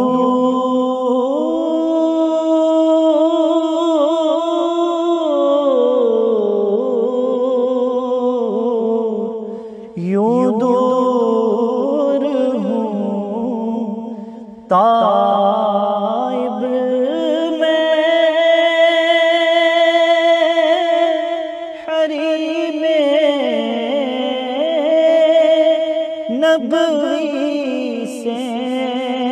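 A solo male voice reciting an Urdu naat, sung unaccompanied in long, held, wavering phrases, with brief pauses for breath a few times.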